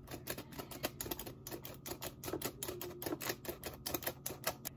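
Baker's Secret stainless steel squeeze-handle flour sifter clicking rapidly, about six ticks a second, as its handle is squeezed over and over to sift cocoa powder; the clicking stops near the end.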